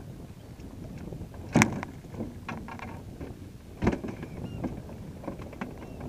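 Choppy water slapping at a small skiff's hull, with wind, broken by two loud sharp knocks, one about a second and a half in and one near four seconds, and lighter clicks between them.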